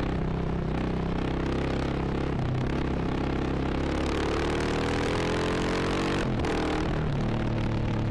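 Motorcycle engine under load with wind noise. It runs at fairly steady revs, then climbs in pitch from about four seconds in. About six seconds in it cuts briefly at an upshift and pulls again at lower revs.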